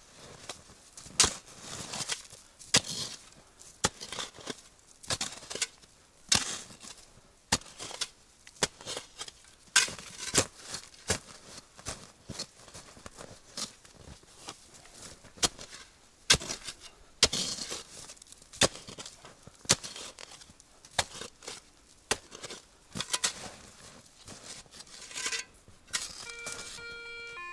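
Spade chopping and scraping into snow and soil, with irregular sharp strikes. Near the end a metal detector gives a short steady pitched tone as its coil passes over the hole.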